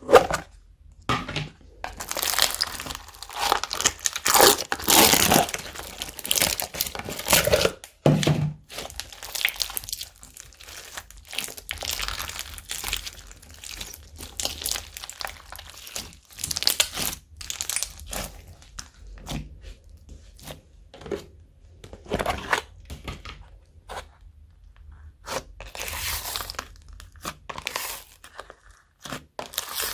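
Slime being kneaded, stretched and squished by hand, giving irregular sticky crackles, pops and crunches, densest in the first several seconds.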